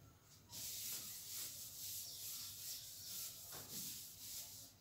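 Handheld eraser rubbing across a whiteboard, wiping off writing in repeated strokes. It starts about half a second in and stops just before the end.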